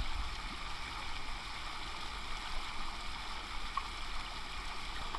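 Water rushing steadily out of a row of concrete culvert pipes and spilling into a shallow river pool, an even, unbroken rush.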